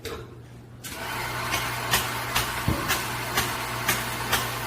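A machine starts about a second in and runs steadily with a low hum, while sharp clicks repeat about twice a second.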